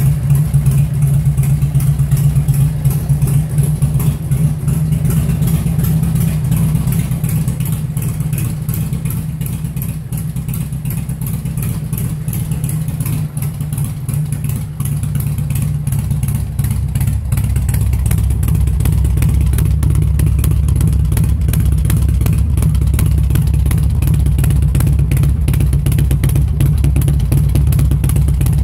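A 1997 Harley-Davidson Electra Glide Standard's Evolution V-twin idling steadily. It is louder and fuller in the second half, close to the muffler outlet.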